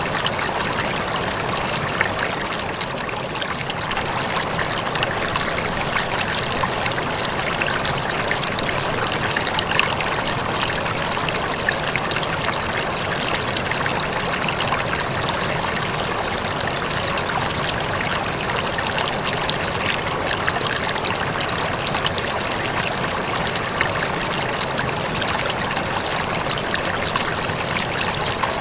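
Water moving steadily in a home aquarium: a constant trickling, splashing sound with small crackles all through.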